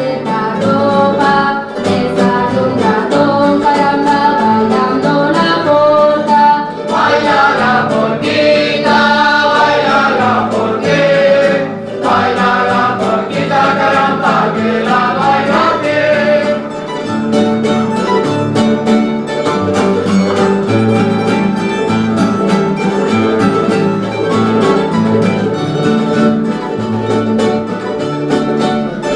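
Live folk-group music: an ensemble of plucked string instruments, led by guitars, playing a tune. Voices sing a verse over it from about seven seconds in until about sixteen seconds, after which the strings carry on alone.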